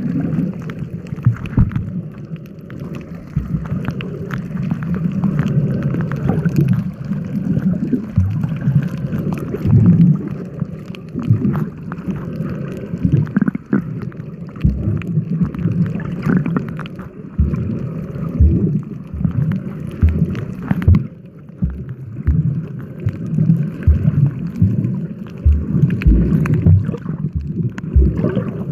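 Sea water sloshing and gurgling around a pontoon, with gusting wind rumbling on the microphone and scattered low thumps.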